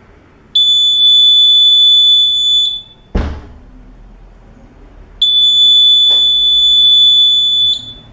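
Buzzer of a homemade 9V battery door alarm sounding a steady, high, piercing tone twice, each time for about two and a half seconds. A single thump falls between the two tones.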